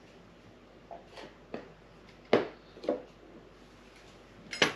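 Quiet lip smacks and mouth clicks from a person tasting a spoonful of strong mustard: a handful of short sounds about a second apart, with a sharper click near the end.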